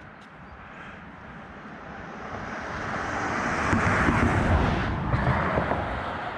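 A passing vehicle: its noise swells gradually to a peak about four seconds in, then fades away.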